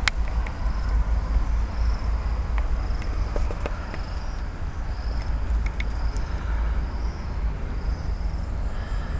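Wind rumbling on the microphone, with an insect chirping faintly in short, high, evenly spaced pulses a little more than once a second. A few faint clicks from the camera being handled.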